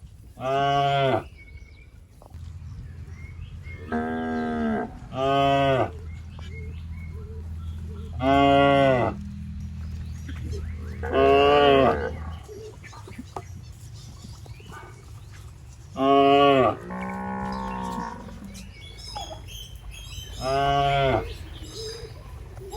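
Cattle mooing repeatedly: about eight short, pitched calls, each under a second and several seconds apart. A steady low drone runs under the first half.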